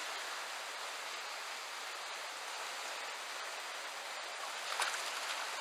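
Rocky river riffle rushing steadily around the wading angler, with a short louder burst near the end.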